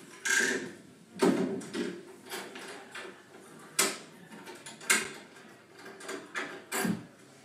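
Irregular knocks and bumps with rustling between them, about five sharp ones, from the camera being handled close to the microphone.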